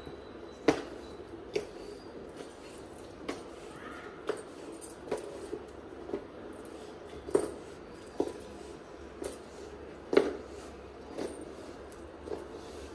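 Long-handled floor wiper worked over wet concrete, its head tapping and knocking against the ground with each stroke: short, irregular knocks about once a second.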